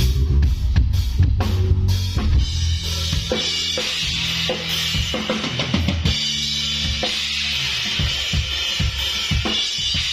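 A band's sound check through a stage PA. A drum kit is played with quick, even hits for about the first two seconds, then cymbals ring over low, held bass notes.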